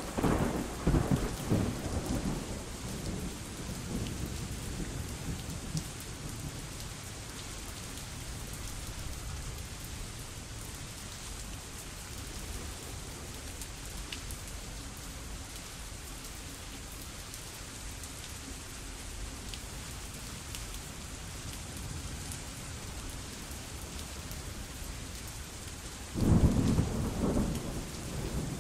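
Steady heavy rain with two low rolls of thunder, one at the start and one near the end.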